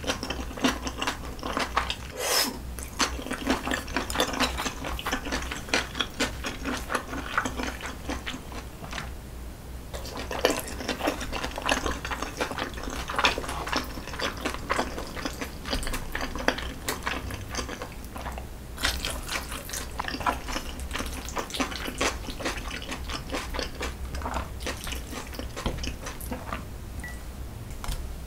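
Close-miked chewing of spicy jjajangmyeon with squid and vegetables: a dense run of wet mouth clicks, smacking and crunching, pausing briefly about a third and two thirds of the way through.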